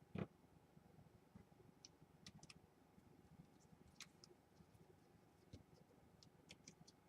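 Faint, scattered small clicks and taps of plastic laptop parts being handled, with a soft knock just after the start.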